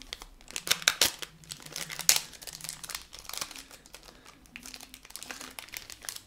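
Clear plastic packaging crinkling and crackling in the hands as a luggage tag is unwrapped, with sharp crackles about one and two seconds in.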